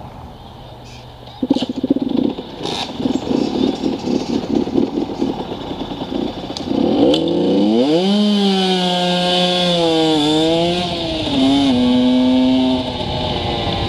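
Small dirt-bike engine, loud from about a second and a half in, running with a fast pulsing beat, then revved as the bike pulls away. Its pitch rises and dips twice as it changes gear.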